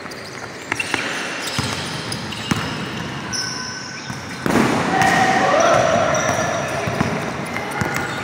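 Basketball game in an echoing indoor gym: the ball bouncing on the court several times, sneakers squeaking, and players' voices, louder from about halfway through.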